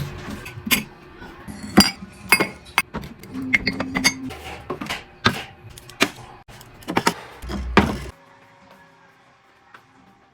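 Dishes and glassware clinking and knocking as they are handled and set down, a quick run of sharp clinks that stops about eight seconds in.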